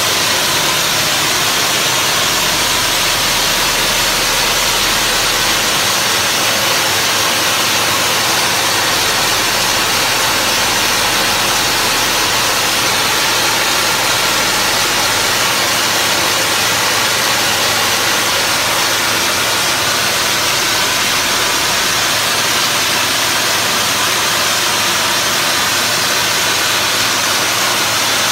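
Wet-blasting nozzle spraying water and fine recycled-glass abrasive at low pressure (about 20 psi) onto brickwork: a steady, loud hiss as it strips paint from the bricks.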